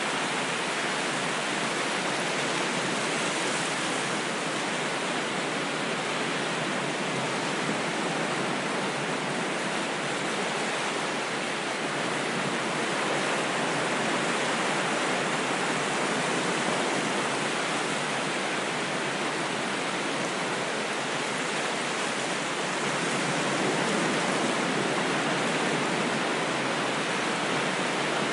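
Steady rushing water from surf, a continuous even wash with only slight, slow swells in level and no distinct breaking crashes.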